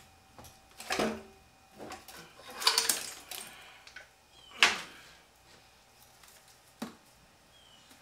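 Irregular metal clunks and clatter as a supercharger is worked loose and lifted off a Mercedes V8 engine. There is a burst of clatter about three seconds in, a sharp knock shortly after, and a lighter knock near the end.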